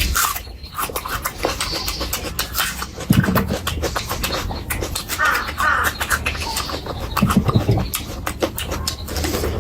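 Close-miked eating of curry: wet chewing and lip smacking, with many sharp mouth clicks and a few heavier bites.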